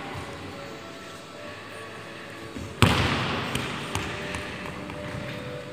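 A football struck once with a sharp thud about three seconds in, a corner-kick shot at goal, followed by a fading noisy tail.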